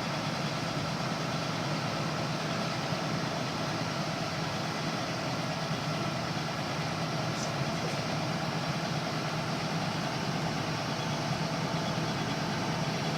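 Backhoe engine running steadily at an unchanging speed.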